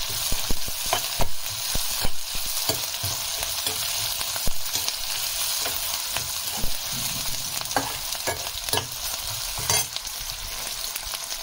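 Sliced onions and cashews sizzling in hot oil in a kadai over a low flame, stirred with a metal spoon that clicks and scrapes against the pan every so often.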